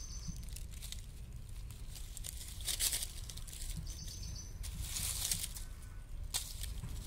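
Dry leaf litter rustling in short bursts, about three seconds in, around five seconds and briefly near the end, as a kitten paws at a small snake lying in the leaves. A low rumble sits underneath.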